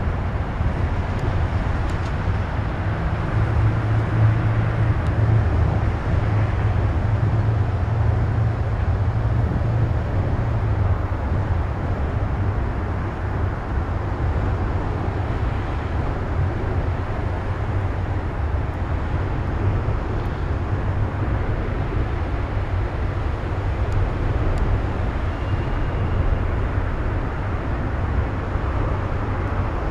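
Long double-stack container freight train rolling steadily across an elevated trestle bridge: a continuous low rumble of wheels and cars, heavier in the first third.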